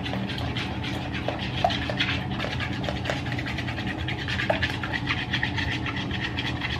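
Raw eggs being beaten in a bowl with a utensil: a rapid, steady run of scraping ticks as the utensil whips through the eggs and knocks the bowl, with a few louder clicks scattered through it. A steady low hum runs underneath.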